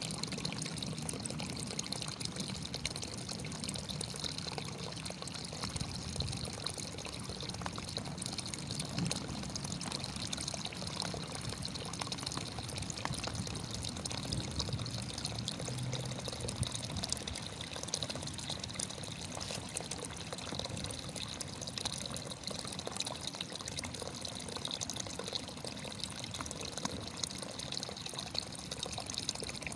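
Running water, a steady even rush of flowing water with many small splashes and no change throughout.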